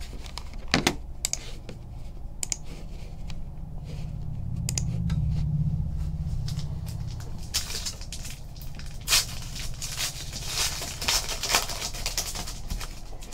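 Foil wrapper of a Donruss basketball card pack crinkling as it is torn open, from about halfway in, among scattered taps and clicks of cards and packs being handled. A low rumble swells and fades in the middle.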